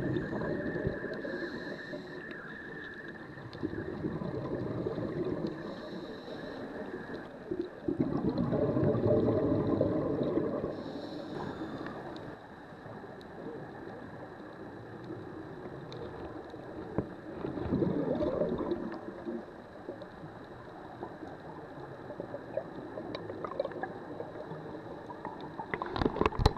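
Underwater sound of scuba breathing through a regulator, with hissing breaths and surges of gurgling exhaust bubbles every several seconds.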